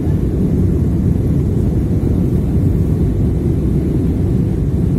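Steady low roar of cabin noise inside an AirAsia Airbus A320-family airliner: jet engines and airflow heard through the fuselage during the descent to land.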